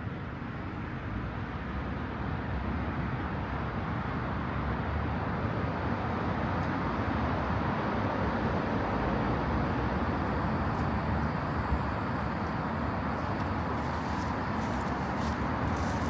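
Road traffic going by: a steady wash of car engine and tyre noise that swells over the first several seconds and then holds, with a few faint light ticks near the end.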